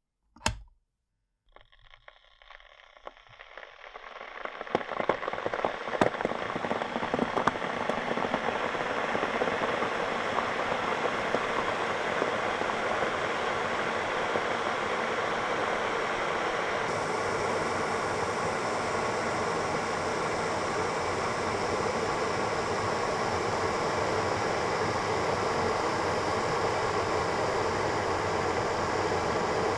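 Electric kettle heating water: a single click, then crackling and ticking that builds over the first several seconds into a steady, dense rushing hiss as the water comes toward the boil.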